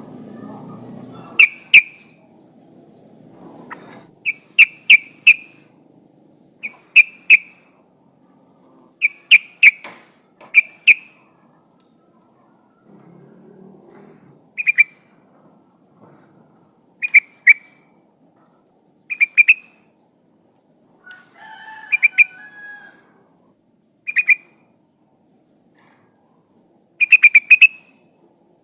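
Yellow-vented bulbul (trucukan) calling: loud bursts of two to four quick, sharp notes, repeated every second or two with short gaps. A female calling for a male.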